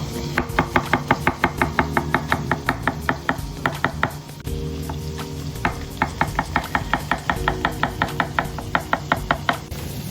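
A knife chopping quickly on a cutting board, about six strokes a second, in two runs with a pause of about two seconds between them. Background music plays underneath.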